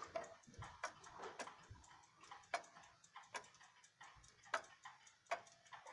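1912 Waterbury hall clock's weight-driven movement ticking through its Graham deadbeat escapement: a steady series of faint, sharp ticks.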